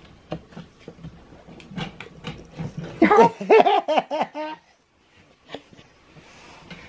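Scattered light clicks and taps for the first few seconds, then a person laughing loudly in quick repeated bursts for about a second and a half, about three seconds in.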